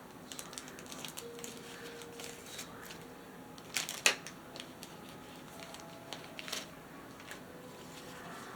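Light clicking and rustling as the contents of a diamond painting kit are handled, with one sharp, louder crackle about four seconds in.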